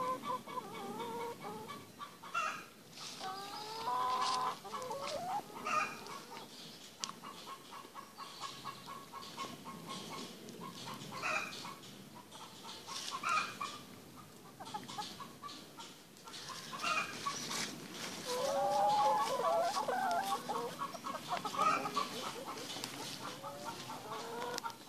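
A flock of brown laying hens and a white hen clucking at close range, in repeated short calls with a few louder runs of calls.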